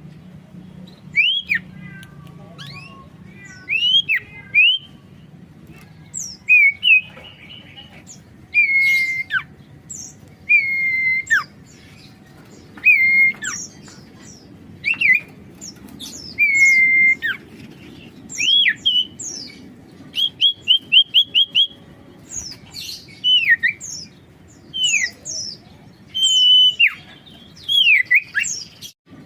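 Common iora (sirtu) singing: a string of clear whistled notes a second or two apart, some held then dropping steeply, others rising, with a quick run of short repeated notes about twenty seconds in.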